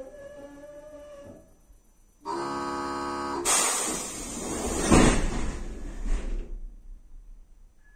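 A steady buzzing tone lasting about a second, then the pneumatic sliding doors of a 1963 PaFaWag EN57 electric multiple unit working: a loud rush of air with heavy thumps about five and six seconds in. A faint falling whine is heard at the start.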